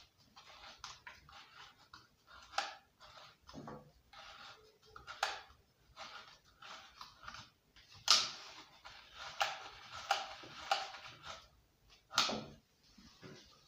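Recoil starter of a Subaru lawnmower engine being turned by hand in its plastic housing: irregular small clicks and rattles of the pulley and its ratchet pawls, with a handful of louder knocks.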